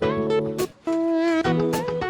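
Background music: acoustic guitar with strummed chords.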